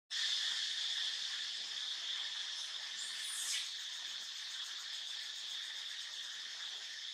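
Steady chorus of insects, a high, even shrill drone that holds without a break, with one brief higher, sharper sound rising over it about three seconds in.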